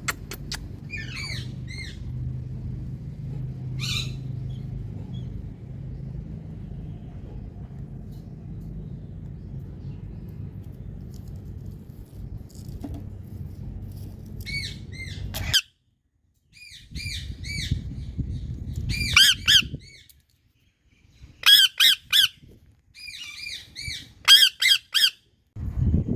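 Indian ringneck parakeet squawking in short runs of shrill, repeated calls, scattered at first and coming thick and loudest near the end. A low steady hum sits underneath for the first half and cuts off suddenly.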